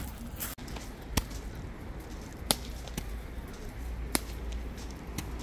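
Small aerial fireworks bursting: three sharp cracks, each a second or more apart, with a fainter pop between the second and third.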